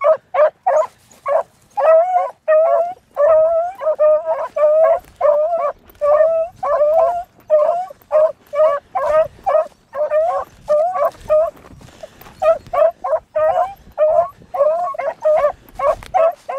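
Beagles baying, a quick, steady run of short, high, bending calls, two or three a second, that of hounds giving tongue as they trail a rabbit's scent.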